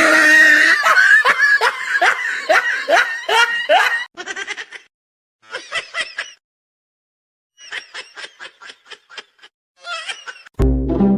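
A person laughing hard: a loud run of quick ha-ha pulses for about four seconds, then softer fits of laughter broken by short pauses.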